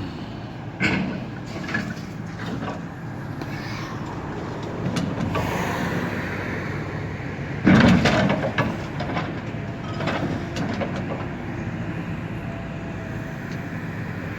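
Pickup truck running and driving, with a few clunks and one loud bang about eight seconds in. The driver fears the jolt did more damage to the truck's already failing wheel bearing.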